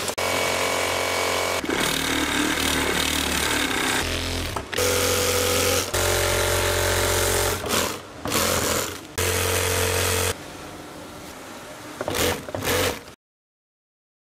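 A quick run of factory machine sounds, changing abruptly every second or two: industrial sewing machines stitching tent fabric and other fabric-working machines running. Near the end the sound cuts off to silence.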